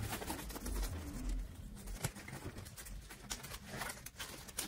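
Blue nitrile gloves rustling and stretching as they are pulled onto the hands, with a few light clicks and taps.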